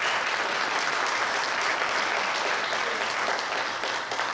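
An audience applauding: a dense, steady round of clapping from a roomful of people that dies away near the end.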